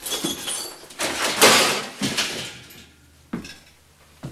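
Clattering and scraping of loose objects being moved about, in several noisy bursts with a faint metallic jingle, the loudest about a second and a half in, then a single knock.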